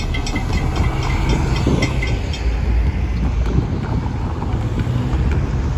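Railroad crossing bell ringing about four times a second, then stopping about two and a half seconds in: the train has cleared and the gates are going up. After that comes a low rumble of cars driving over the crossing, with wind on the microphone.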